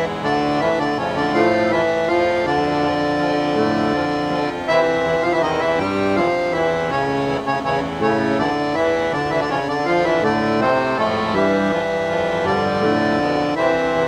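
Background music of held, sustained chords and melody notes changing in steps, with a steady level.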